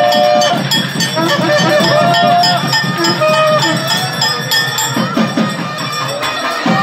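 Temple ritual music: a held melody that slides in pitch, played over quick, steady drum beats, with bells ringing.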